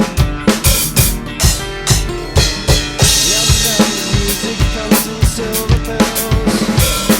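Rock drum kit played to a song, with a steady kick and snare beat and rimshots, over guitar and bass. A cymbal crash rings out about three seconds in.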